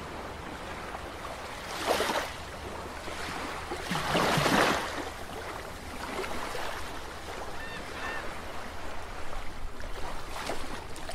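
Outdoor rushing noise, steady, with a low rumble and two louder swells, about two seconds in and around four to five seconds in. A few faint short chirps sound near the eight-second mark.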